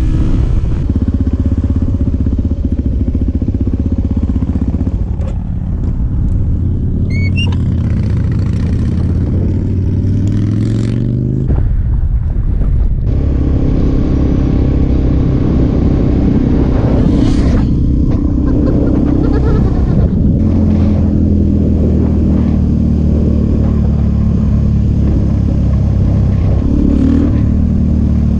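Suzuki DR-Z400SM's single-cylinder four-stroke engine, fitted with an FCR carburettor, running on the road. The engine note rises and falls with the throttle, with sudden steps in pitch as the gears change.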